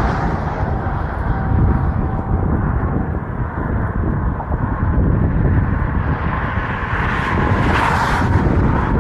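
Outdoor ambience dominated by wind rumbling on the microphone, with a vehicle passing, its sound swelling about seven to eight and a half seconds in.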